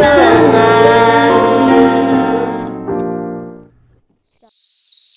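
Children singing a song with piano accompaniment, closing on a long held note and chord that fade out about three and a half seconds in. After a moment of near silence, a steady high cricket chirping starts near the end.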